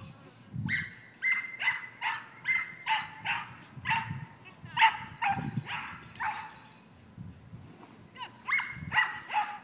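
Dog barking in a rapid string of short, high-pitched barks, about two a second, pausing for about two seconds before barking again near the end.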